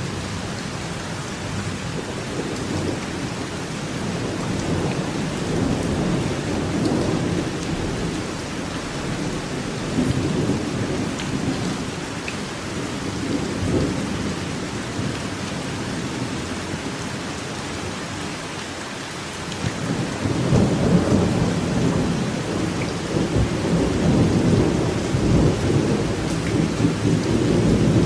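Steady rain falling in a forest, a continuous hiss with a heavier low rumble underneath that swells louder about twenty seconds in.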